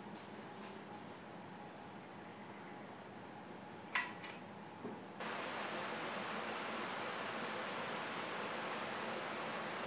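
A single sharp metallic click about four seconds in as a wrench works the nut of a homemade threaded-rod headset press fitting a headset cup into a steel bike frame, with a fainter knock just after. A steady faint high-pitched whine runs underneath, and a hiss rises about five seconds in.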